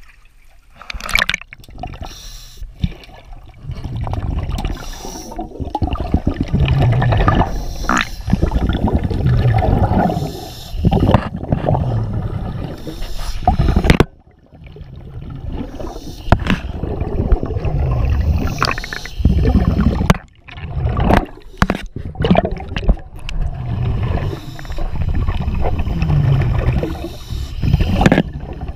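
Underwater gurgling and bubbling, heard by a camera below the surface, with scrapes and sharp knocks as it moves along a boat hull covered in growth.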